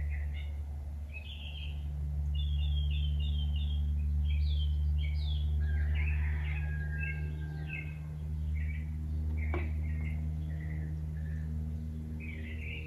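Songbirds chirping and singing over a steady low hum, with a single sharp click near the end.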